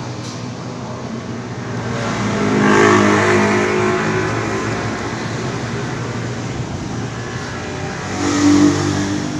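A motor vehicle engine running, its pitch and loudness swelling about three seconds in and again near the end.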